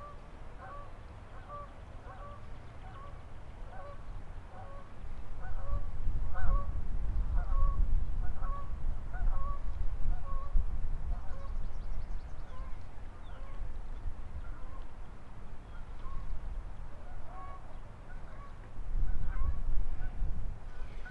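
Geese honking over and over, about two calls a second, thinning out in the second half. A low rumble of wind on the microphone runs underneath and grows louder a few seconds in.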